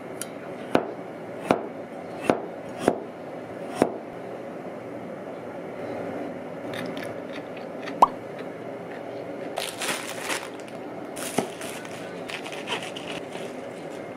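Kitchen knife slicing a radish on a cutting board: five crisp chops in the first four seconds, then a single sharp clack about eight seconds in. Crackly rustling handling follows, over a steady low hum.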